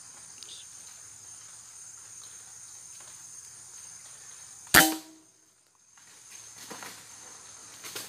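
A single shot from a PCP air rifle nearly five seconds in: one sharp crack with a short ring. Under it runs a steady high-pitched drone of forest insects.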